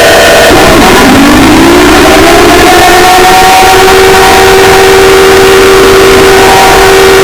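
Loud emergency alert siren. Its tone dips about a second in, glides back up over the next two seconds, then holds steady and falls slightly near the end.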